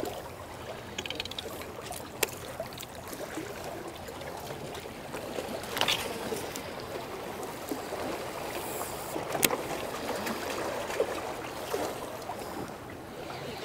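Water lapping at the shore, with a baitcasting reel being wound in during a lure retrieve. A few sharp clicks stand out, about 2, 6 and 9 seconds in.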